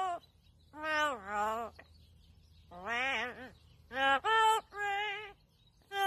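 Yellow-naped Amazon parrot singing in short melodic phrases: a note sliding down in pitch about a second in, a wavering note near the middle, then a few held notes.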